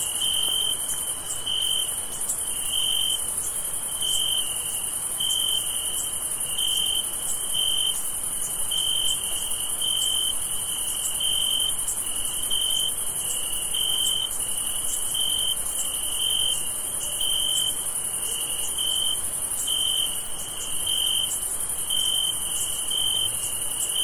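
A chorus of crickets at night: a chirping trill pulsing in an even rhythm over a steady high-pitched buzz of insects.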